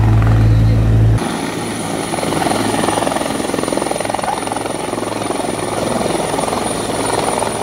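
Helicopter landing close by: rotor and turbine running with a rapid, even rotor beat and a steady high whine. About a second in the sound changes abruptly where the footage cuts to a second recording.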